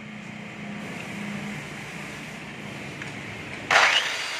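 A 1430 W electric circular saw switched on near the end, its motor starting with a sudden loud burst and a rising whine as it spins up, then running on. Before it, only a low steady hum.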